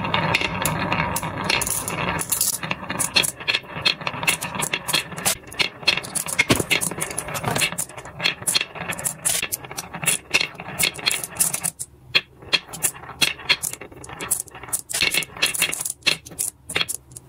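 Glass marbles rolling down a carved wooden wave track and clicking against the wood and against one another as they pile up in its hollows. A dense rolling rattle for most of the time, thinning to scattered separate clicks in the last few seconds.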